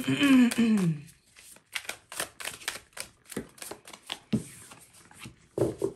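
A deck of tarot cards being shuffled by hand, a quick, irregular run of crisp card clicks and slaps, after a short spoken word at the start.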